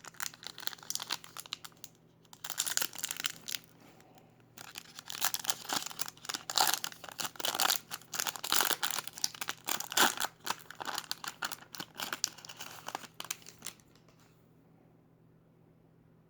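Trading-card packaging from a 2021 Bowman Sterling box being torn open and crinkled by hand, in irregular bursts, stopping about fourteen seconds in.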